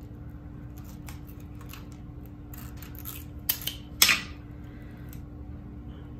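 Double-sided tape being handled and pressed along the edge of a wooden picture frame: scattered short crackles and clicks, with two sharper, louder crackles about three and a half and four seconds in. A steady low hum runs underneath.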